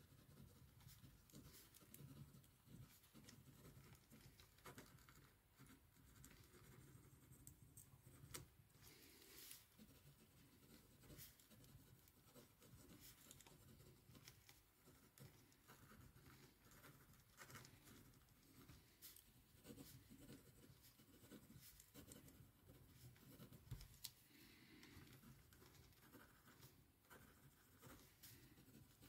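Faint, irregular scratching of handwriting on paper, over a low steady room hum.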